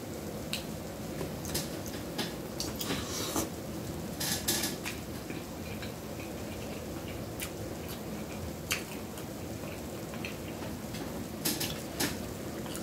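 A fork clicking against a serving platter and fingers handling king crab legs while picking out the meat: scattered light clicks, with two brief rattling clusters a few seconds in, over a steady low hum.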